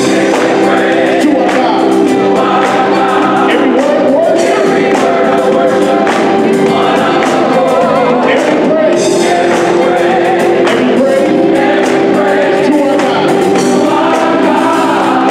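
Gospel choir of men's and women's voices singing together, backed by a live band with electric bass and drum kit.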